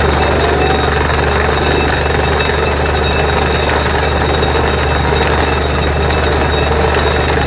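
Borewell drilling rig running steadily: a loud, unchanging machine din with a deep steady hum.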